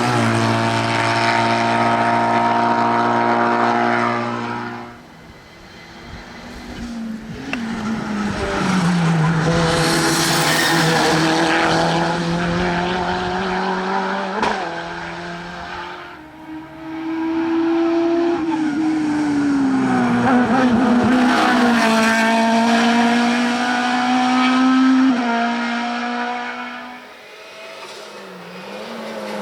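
Hillclimb racing car engines running hard at high revs, heard in three loud stretches with dips between, the engine note stepping down and gliding up again with each gear change.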